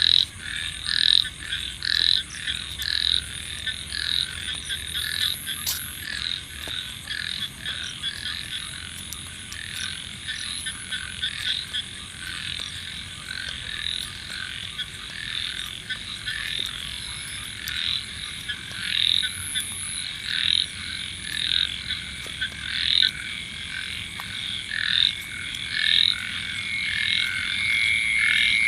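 A chorus of many monsoon frogs croaking together, short overlapping calls repeating several times a second, growing louder near the end.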